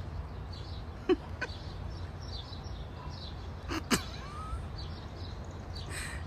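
Outdoor ambience: a steady low rumble with faint bird chirps, and two short sharp sounds, one about a second in and one just before four seconds.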